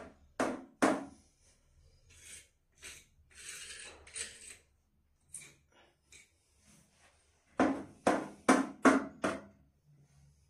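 A screwdriver scraping and prying at the old wax seal and cement residue around a toilet's floor drain on a tiled floor. There are scattered short scrapes, and sharp metal knocks: two about half a second in, and a quick run of four or five near the end.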